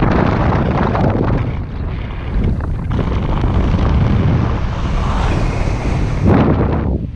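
Wind rushing over an action camera's microphone in paraglider flight: a loud, unsteady rush of wind noise that eases briefly about two seconds in and again at the end.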